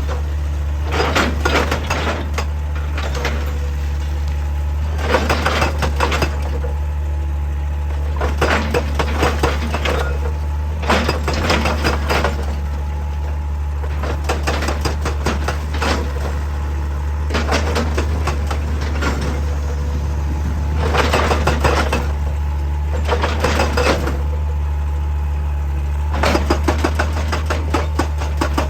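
Heavy quarry machinery with a diesel engine running steadily at a constant pitch, and short bursts of clattering and crunching every two to three seconds, as rock is moved or broken.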